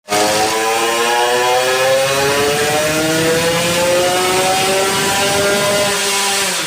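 Two-stroke motorcycle engine under load on a dyno, pitch climbing steadily through a pull and levelling off near the end, running cleanly without its earlier misfire.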